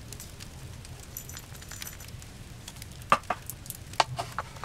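A few light knocks and clicks of cooking things being handled while hot cider is prepared, the sharpest about three seconds in and two more around four seconds, over a low steady hum.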